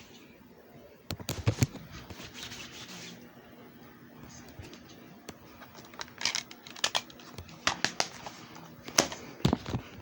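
Clusters of sharp clicks and knocks: a burst about a second in, more around six to eight seconds in, and the loudest near the end.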